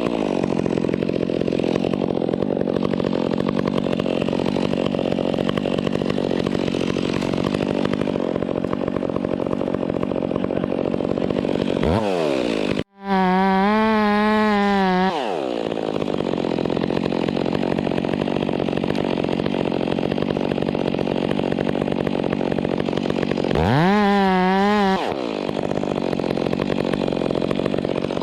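Chainsaw running continuously. Three times it revs up to a high, wavering pitch, and between these it runs at a steadier, lower pitch. The sound drops out for an instant about halfway through.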